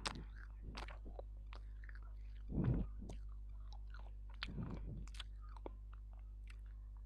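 Dried edible clay being bitten and chewed right at a close microphone: scattered sharp, gritty crunches, with two longer and louder chewing sounds about two and a half and four and a half seconds in. A steady low electrical hum runs underneath.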